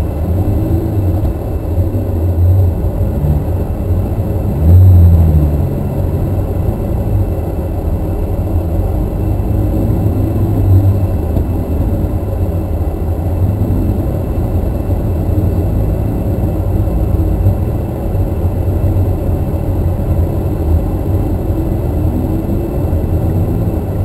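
Ruf CTR's twin-turbo flat-six running at low revs, heard from inside the cabin, with a short rise in revs about five seconds in that is the loudest moment, and smaller ones later.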